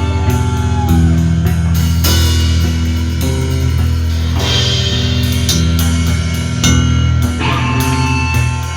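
Loud rock music: distorted electric guitar chords over bass and a steady drum-kit beat, with no vocals standing out.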